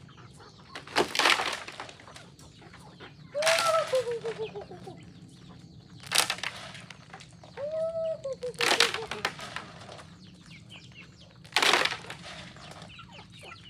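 Chickens calling: two drawn-out clucks that fall in pitch, among several short, loud noisy bursts every couple of seconds.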